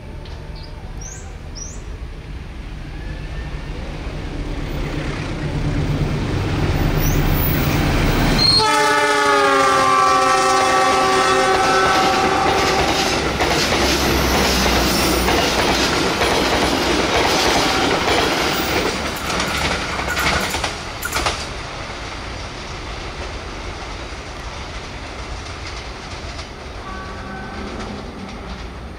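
Diesel-hauled passenger train approaching with a low engine rumble that grows louder, then the locomotive's air horn sounding for about five seconds, dipping in pitch as it passes. The coaches follow with steel wheels clattering over the rail joints, and the noise fades over the last several seconds.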